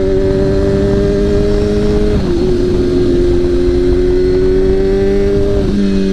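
Straight-piped Kawasaki ZX-6R inline-four motorcycle engine running at a steady cruising speed under way, with wind rumble. The pitch dips slightly about two seconds in and again near the end as the throttle eases.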